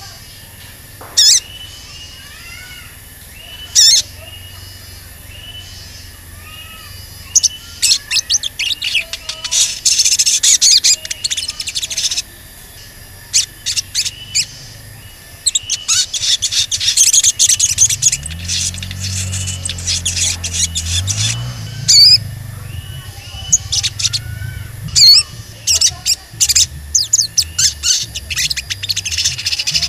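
Sogon (brown-throated sunbird) giving sharp, high 'cuit cuit' chirps: a few single calls in the first seconds, then fast runs of repeated chirps. A low rumble joins in about two-thirds of the way through.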